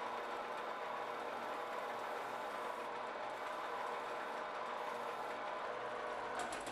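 Metal lathe running steadily in reverse with foam-backed abrasive paper held against the spinning bronze impeller, sanding the burrs off its thin blades: an even machine whir with the hiss of the sanding.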